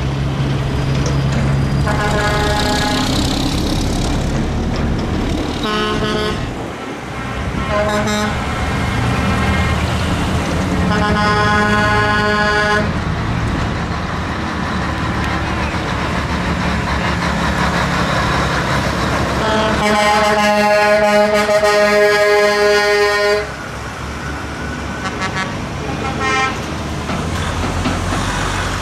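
Heavy trucks driving past one after another with a steady low diesel rumble, their horns sounding a series of blasts, the longest held for about three and a half seconds near the two-thirds mark and cut off sharply.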